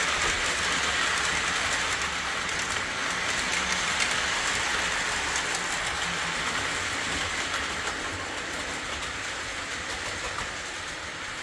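Postwar Lionel O gauge locomotive with a Pullmor motor running on three-rail track: a steady motor whir and wheel rumble on the rails, getting gradually quieter toward the end.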